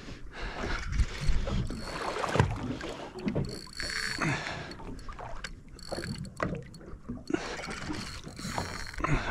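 Water lapping and slapping against the hull of a small boat, with scattered knocks and wind on the microphone.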